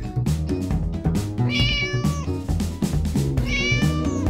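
Background music with a steady drum beat, over which a cat meows twice, each meow a bit under a second long.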